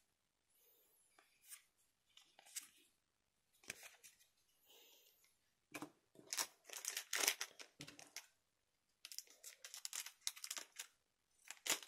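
Trading cards and a foil booster-pack wrapper being handled, rustling and crinkling in short, scattered bursts that grow busier in the second half.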